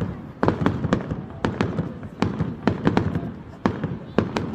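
Fireworks going off in quick succession: many sharp bangs at irregular intervals, a few each second, over a low rumble.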